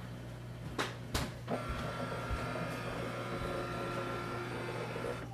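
HP DeskJet 2842e scanner running a scan: two clicks about a second in, then the carriage motor runs steadily with a thin whine as the scan head travels under the glass.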